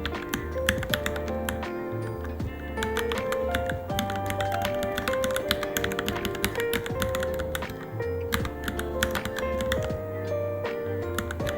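Rapid typing on a Varmilo Minilo mechanical keyboard: a quick, uneven run of key clicks, several a second, over background music with a melody and bass line.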